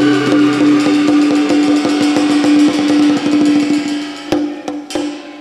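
Instrumental close of a Khmer song in Bassac-opera style, played by a live band: a quick run of wood-block and drum strikes over one held low note, then three separate final hits near the end as the music dies away.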